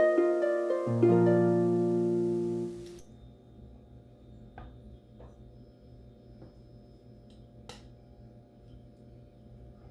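A short harp-like plucked-string music phrase that stops about three seconds in, followed by a much quieter steady hum with a few soft clicks.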